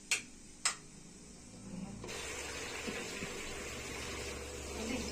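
Two sharp clicks, then about two seconds in an electric kitchen mixer switches on and runs steadily, its motor humming under a watery churning noise as it churns set cream with lukewarm water to separate butter.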